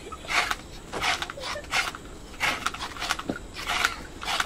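Knives scraping the skin off cassava roots in short strokes, about one or two a second, some overlapping from more than one peeler.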